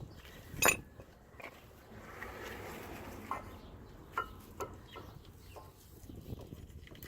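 Metal brake pads being fitted into a disc brake caliper bracket. There is one sharp click a little under a second in, then a short scraping rustle, then three or four lighter metallic clinks that ring briefly.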